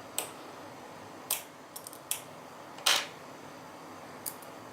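A handful of short, sharp clicks and taps of small tools on a smartphone's internal parts as the camera module is unclipped and lifted out; the loudest click comes about three seconds in.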